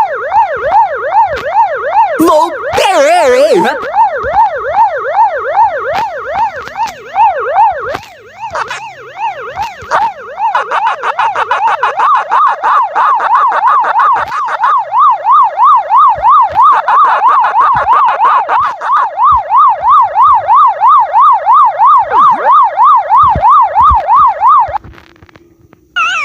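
Electronic siren in a fast yelp, its pitch sweeping up and down about three to four times a second. A jumbled, distorted burst breaks in about two to four seconds in, and the siren grows louder from about ten seconds before cutting off suddenly near the end.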